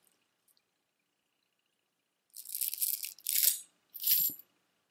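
Strands of shell beads on a multi-strand shell necklace clattering against each other in three short bursts, starting a couple of seconds in, as the necklace is picked up and set aside.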